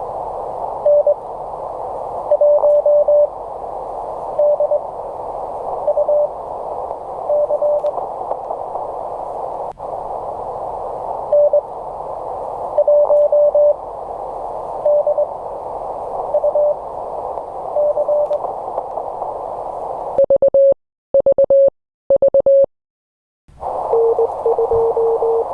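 Morse code (CW) tones from an amateur radio transceiver, heard over a steady band of receiver hiss. About twenty seconds in, the hiss cuts out for a few clean keyed tones. The hiss then comes back with another station sending faster at a slightly lower pitch.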